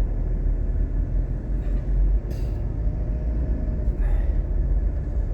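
A vehicle engine running with a steady low rumble, with a short hiss about two seconds in.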